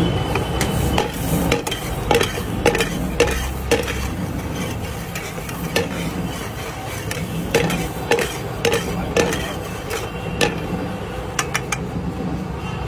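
Metal spatula clinking and scraping against an iron frying pan while stirring cashews and raisins as they fry, with a light sizzle. The sharp clinks come in quick runs, about two a second, thinning out in the middle and near the end.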